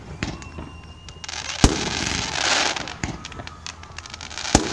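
Fireworks going off: a sharp bang about a second and a half in, a loud hissing crackle after it, and another sharp bang near the end.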